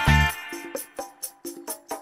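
Background music with a quick, steady percussion beat; a loud low chord hits at the start and fades within about half a second.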